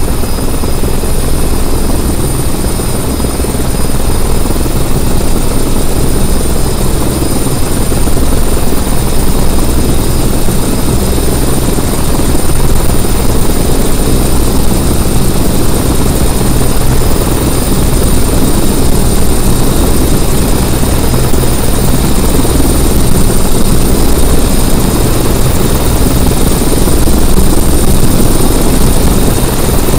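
Robinson R44 helicopter hovering low: steady beat of the two-blade main rotor over the drone of its Lycoming six-cylinder piston engine, with a thin high whine above.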